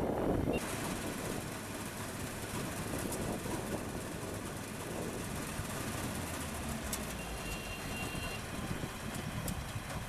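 Yanmar AW82V combine harvester running steadily, its engine and V-belt and pulley drive turning.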